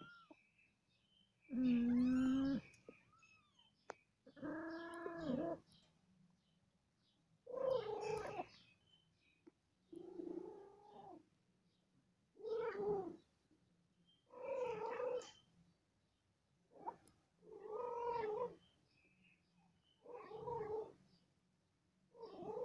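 Cats meowing: about ten separate cries, one roughly every two seconds, many bending up and then down in pitch.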